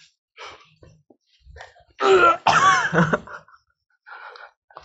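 A boy coughing and gagging twice in quick succession about two seconds in, choking on a mouthful of raw eggplant.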